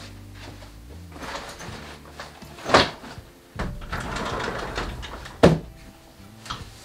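A wardrobe's sliding door being opened. There is a knock, then about a second and a half of rolling, ending in a sharp clack as the door stops.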